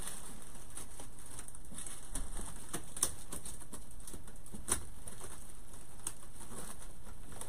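Dry grapevine twigs crackling and ribbon rustling as a bow is worked in among the twigs of a grapevine wreath: scattered light clicks, a few sharper ones, over a steady faint hiss.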